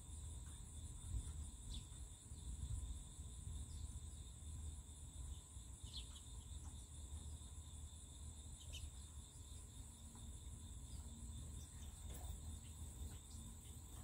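Steady high-pitched insect chorus, a continuous pulsing drone of crickets or similar insects, with a few brief bird chirps over a low rumble.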